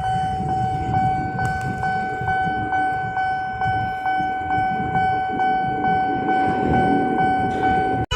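Railway level-crossing warning alarm sounding: a steady high tone with a faint tick about twice a second, over a low rumble. It cuts off abruptly near the end.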